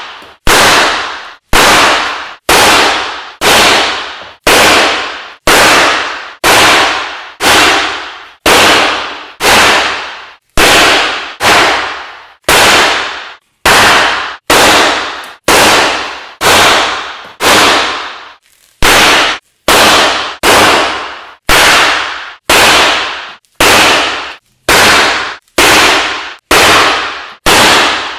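Hand-held confetti cannons going off one after another, about once a second. Each is a sharp bang followed by a short rushing hiss that fades and cuts off suddenly.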